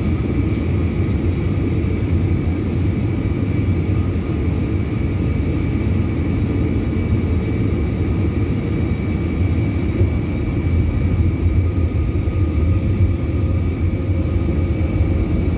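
Airbus A320 cabin noise heard from a window seat during the descent: a steady low rumble of engines and airflow, with a faint high whine held at one pitch throughout.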